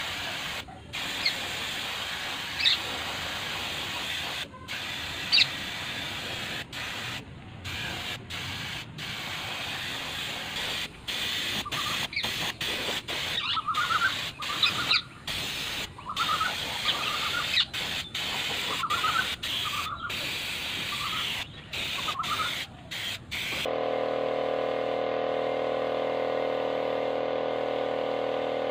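Compressed-air paint spray gun hissing in bursts, cut short each time the trigger is released, while spraying the body of a sewing machine. About 24 seconds in, a steady hum with a fixed pitch takes over.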